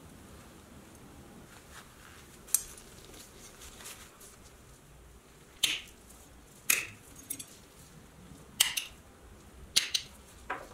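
Sharp metallic clicks and clinks from a small metal toy-truck grille being handled with gloved hands, about seven of them at irregular intervals starting about two and a half seconds in.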